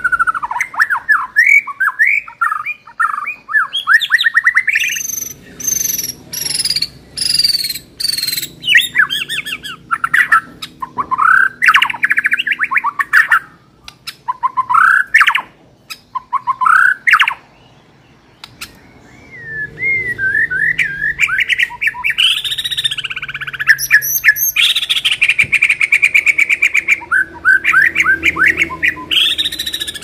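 White-rumped shama (murai batu) singing loudly: a long, varied run of rapid whistles, trills and chattering phrases, with a pause of about a second and a half a little past halfway.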